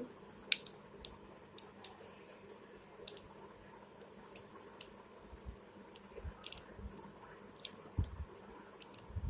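Small screwdriver undoing the tiny screws of a Samsung flip phone's casing: scattered light clicks and ticks, with a few soft low knocks near the end.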